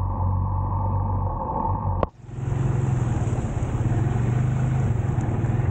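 Motorcycle engine running steadily under wind and wet-road hiss. About two seconds in the sound cuts out for an instant, then comes back with the engine note a little higher and the hiss louder and brighter.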